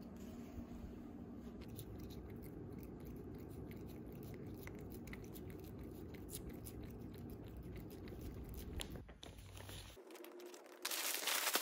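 A cat licking a lickable treat from a squeeze sachet: a run of quick, wet licking clicks. Near the end, loud rustling of paper parcel wrapping being handled.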